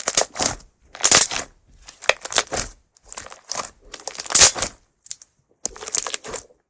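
Clear slime made from laundry starch and borax water being squeezed and kneaded by hand, giving wet crackling and popping in about seven short squeezes.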